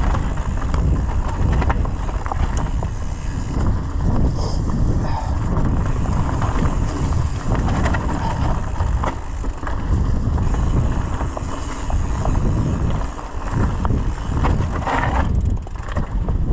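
Mountain bike descending a dirt trail: wind rumbling on the microphone, tyres running over dirt and the bike rattling over bumps.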